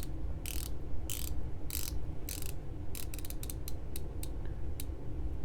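The 120-click rotating bezel of a Borealis Seastorm dive watch being turned by hand, ratcheting in about four short sweeps, then a run of quick single clicks as it is set back into line.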